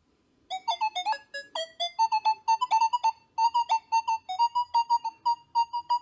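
Nokta Makro Legend metal detector in Field mode with full tones sounding a fast run of short electronic beeps, several a second, as a silver ring passes over its coil: a solid target signal. Starting about half a second in, the pitch wavers at first, then settles on one steady tone.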